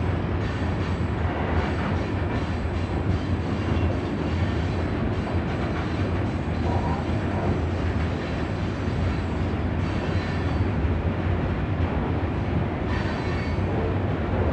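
Freight train running: a steady low rumble of the moving cars on the rails.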